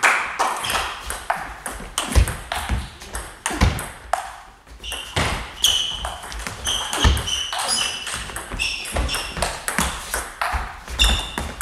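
Table tennis ball clicking off the bats and the table in a fast rally, many sharp ticks in quick, uneven succession. From about halfway, short high squeaks of shoes on the hall floor.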